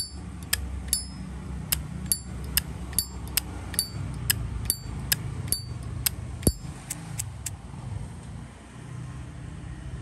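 Zippo lighter's hinged lid flicked open and snapped shut again and again: sharp metal clicks with a bright ring, about two to three a second, stopping near the end.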